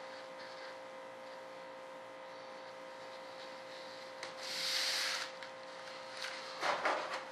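Paper pattern sheet rubbing and rustling under the hands as it is pressed flat on a worktable: a longer rub about halfway through, then several short crinkles near the end, over a steady hum.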